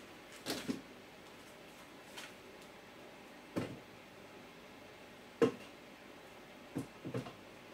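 About five scattered knocks and taps, the loudest about five and a half seconds in, as a block of cheese is cut with a knife and the chunks drop into a Thermomix's stainless-steel mixing bowl.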